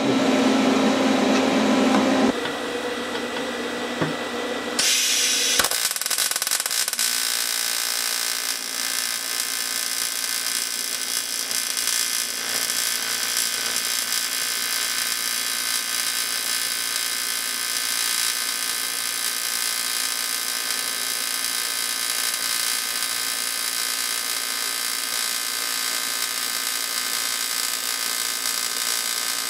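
AC TIG welding arc on cast aluminium, striking about five seconds in and then buzzing steadily with a high hiss.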